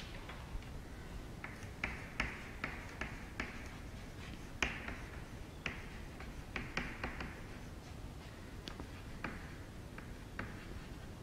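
Chalk writing on a chalkboard: a run of irregular short taps and brief scratchy strokes as words are written by hand.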